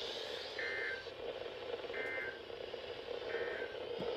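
Three short EAS end-of-message data bursts, the two-tone SAME digital chirp, about 1.3 seconds apart over steady radio static, marking the end of a weather radio severe thunderstorm warning.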